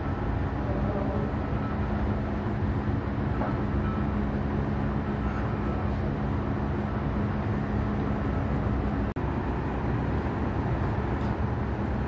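Steady low rumble of factory machinery with a constant hum; the hum stops after a brief break in the sound about nine seconds in, and the rumble carries on.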